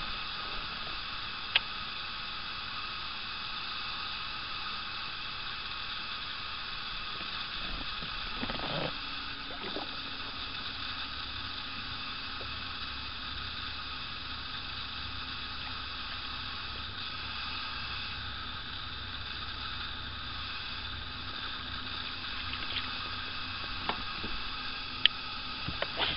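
Steady open-air hiss over the water, with a few sharp clicks and, from about a third of the way in, a faint low steady hum.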